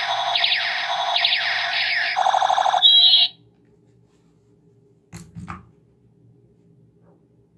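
Battery-powered light-and-sound toy revolver playing its electronic sound effect: a loud, warbling, siren-like tone in repeated sweeps, about two a second, cutting off suddenly a little over three seconds in. About two seconds later come two short plastic knocks as the toy is set down on the table.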